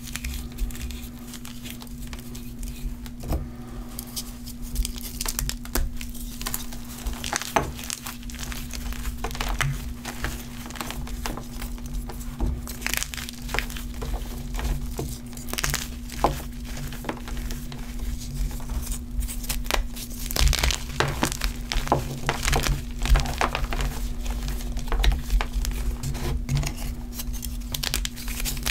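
Block of green chalk with a glittery top layer being squeezed and crushed by hand: dense, irregular crunching and crackling as it breaks into chunks and powder, busier in the second half. A faint steady low hum runs underneath.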